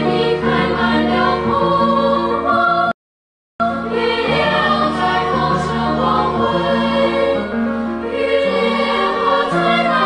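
Background music with singing voices. It cuts out completely for under a second about three seconds in, then resumes.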